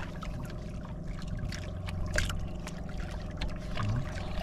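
Outrigger boat's engine running steadily at low revs, a constant low drone, with small splashes of water against the hull.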